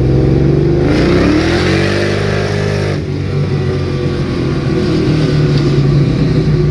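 2003 Mustang SVT Cobra's supercharged 4.6 V8 heard from inside the car, accelerating hard for about two seconds, then dropping off suddenly and running on steadily. The engine has a dead cylinder, and the riders take the sound for an exhaust leak on the left side.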